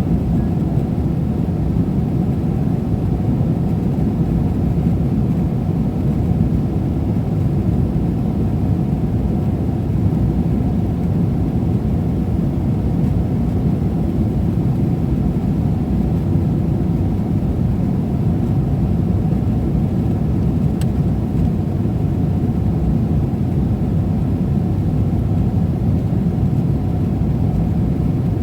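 Steady low rumble of a Boeing 777-300ER's cabin noise, engine and airflow drone with no change in level.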